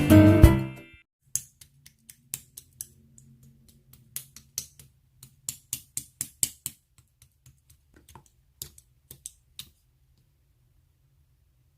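Music cuts off about a second in, followed by a run of irregular light clicking taps, some in quick pairs, that stop about two seconds before the end.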